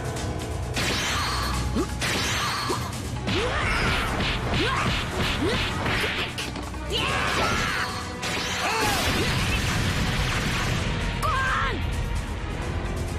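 Anime fight sound effects: whooshes and hits over a steady low rumble, with a quick run of about four strikes a second a few seconds in.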